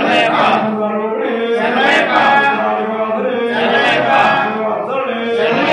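Male voices chanting a devotional hymn in long, held sung phrases.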